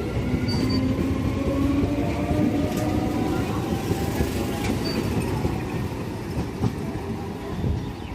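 Train passing through the station at speed: a steady rumble of wheels on rail with rapid clicks over the rail joints, easing off near the end.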